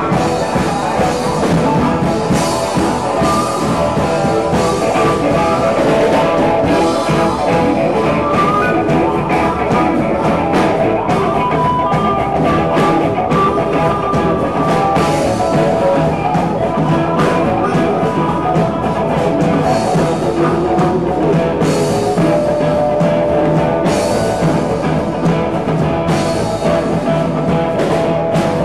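Live rock-and-roll band playing: electric guitar over a steady drum beat.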